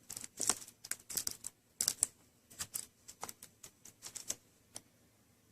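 Irregular light clicks, taps and rustles of hands handling a laptop's screen assembly while reattaching a cable. They stop shortly before the end.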